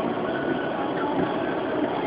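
Steady noise inside a moving car's cabin: heavy rain on the body and tyres on the wet road, with the engine under it.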